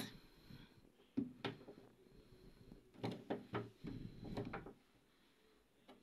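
Clicks and scraping of the plastic drain-pump access cover on a Hisense front-loading washing machine being prised open by fingernail: a sharp click about a second in, then a run of clicks and rubbing around three to four and a half seconds in.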